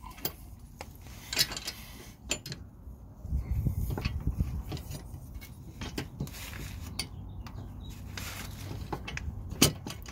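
Scattered light metal clicks, taps and scrapes from a square-head bolt being worked into the channel of a metal running-board step and against its mounting bracket, with a sharper click near the end.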